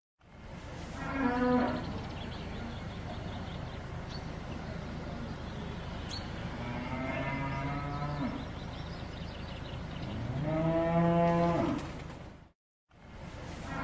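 Cattle mooing: three drawn-out moos, a short one about a second in, then longer ones around seven and ten seconds in, over a steady background hiss. The sound drops out to silence for a moment near the end.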